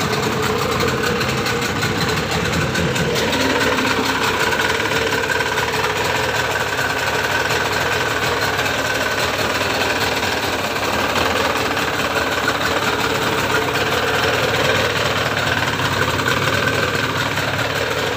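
Yamaha 25 hp outboard motor running steadily on a test stand, its leg in a tub of water.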